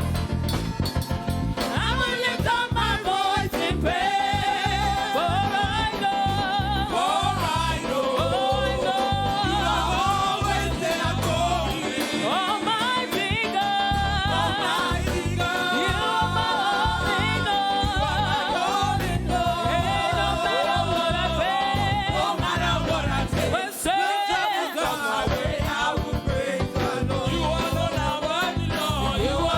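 Church praise music: voices singing a gospel song over a band with a steady pulsing bass beat, the singing coming in about two seconds in.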